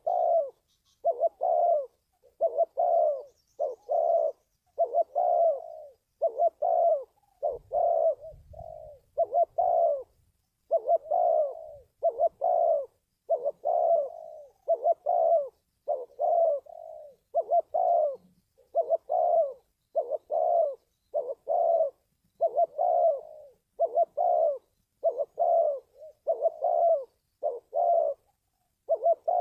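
Spotted dove cooing over and over, about one coo phrase a second: a lure call used to train decoy doves and draw wild doves in for trapping.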